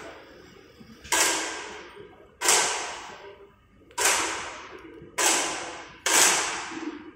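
Five sharp shots from air rifles firing on the range, irregularly spaced about a second apart, each dying away over about a second in the hall's echo.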